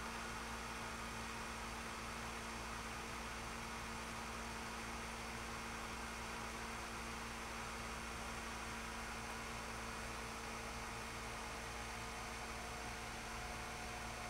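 Steady electrical hum with an even hiss underneath. The hum holds a few constant tones and never changes. No bird calls are heard.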